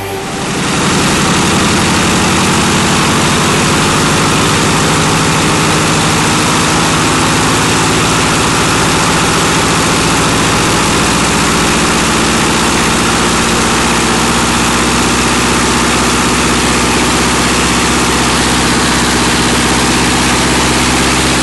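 Van's RV-9A light aircraft's piston engine and propeller running steadily on the ground while the new engine is being run in; the note edges up slightly over the run.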